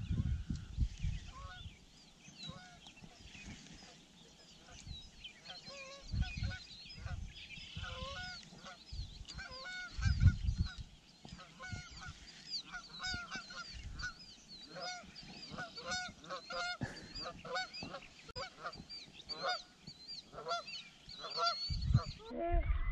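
A flock of birds calling over and over, short rising-and-falling calls overlapping several times a second throughout, with a few gusts of wind on the microphone about six and ten seconds in and again near the end.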